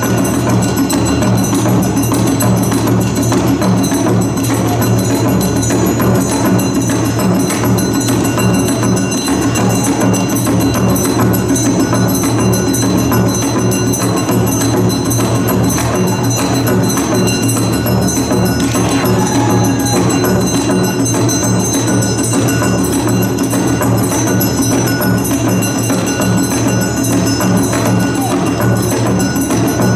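Loud yosakoi dance music with a steady percussive beat, playing without a break.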